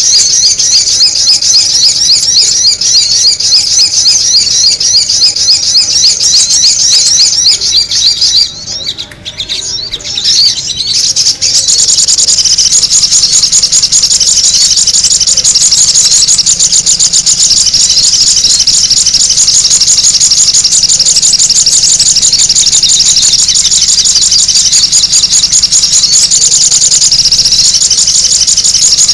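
Sogon bird calls in a bird-lure recording: loud, rapid, high-pitched chirping packed tightly together. It drops away briefly about nine seconds in and comes back a couple of seconds later as an even steadier stream.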